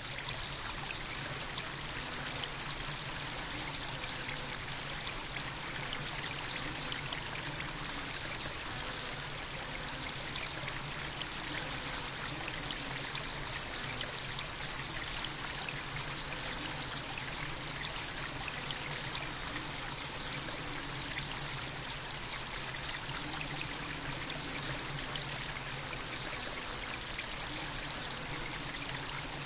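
Water trickling and running steadily, with short high chirps repeated in quick runs throughout.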